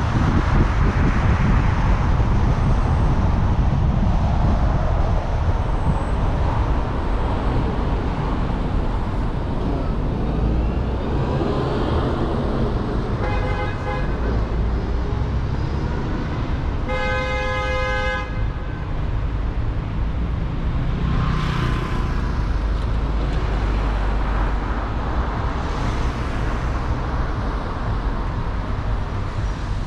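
Steady street traffic and road noise, with a vehicle horn honking twice: a short toot about thirteen seconds in and a longer blast about four seconds later. Passing vehicles rise and fade a little after twenty seconds and again near twenty-six seconds.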